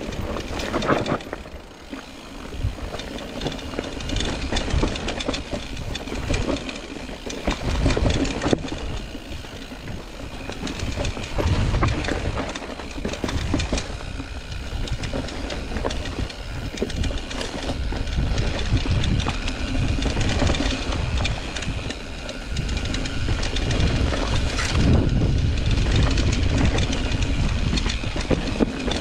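Mountain bike rolling over a rough, rocky trail: continuous rattling and clatter over uneven low rumble, louder in the last few seconds.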